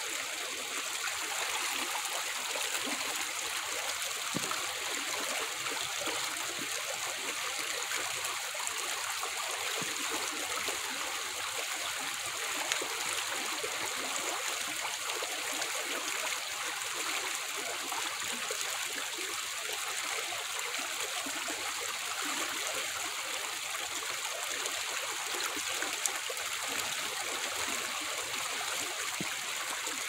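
Shallow rocky creek running over stones, a steady, bright rush of flowing water.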